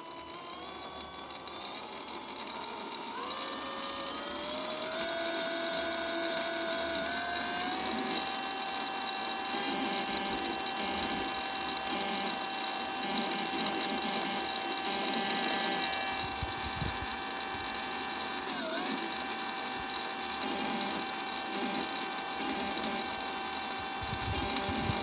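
Bafang BBS02 mid-drive e-bike motor whining as it spins up. Its pitch rises in steps over the first several seconds, then holds steady, with one brief dip about three-quarters of the way through. The owner takes the noise for something abnormal.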